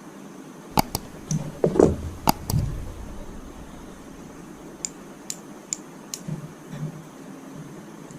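Clicks and knocks from handling the parts of a microwave oven under repair. A cluster of sharp clicks and a dull thump comes in the first few seconds, then four lighter clicks about half a second apart, over a steady hiss.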